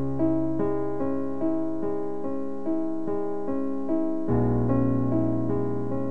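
Synthesizer with an electric-piano tone playing a slow, even melody of notes about two or three a second over held low bass notes. The bass changes about four seconds in.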